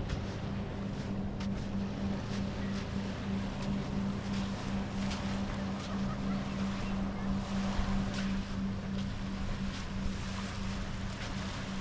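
A boat engine running steadily with a low hum, over the wash of small waves and wind on the microphone, with occasional soft crunches of footsteps in sand.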